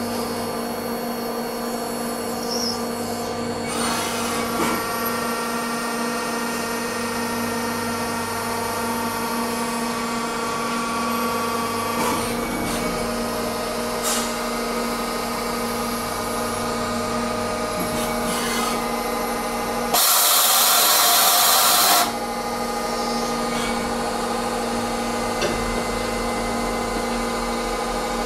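Nomura NN-32YB2 CNC turning centre machining a brass bar: a steady whine of several held tones that shift pitch a few times, with a loud two-second rush of noise about twenty seconds in.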